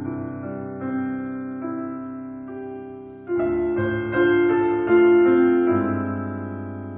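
Slow solo piano music: chords struck about once a second and left to ring and fade, swelling louder about halfway through.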